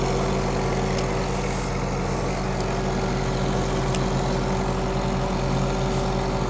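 Tractor engine running steadily, with a constant whine over its hum and a couple of faint clicks.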